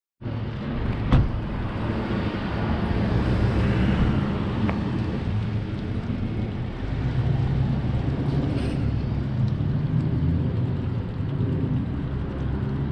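Outdoor street ambience: a continuous low, uneven rumble, with a single sharp click about a second in.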